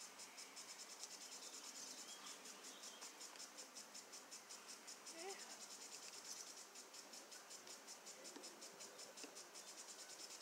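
Faint chirping of insects, a fast, even pulse that keeps going steadily.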